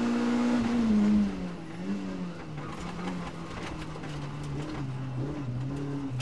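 Rally car engine heard from inside the cabin, held at high revs and then lifted off about a second in, dropping to lower revs that waver up and down as the car slows through a bend. Scattered sharp ticks of stones thrown against the car come in over the dirt section.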